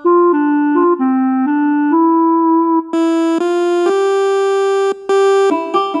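A phone ringtone: a short electronic melody of clear keyboard-like notes, one note held long through the middle, then quicker notes near the end.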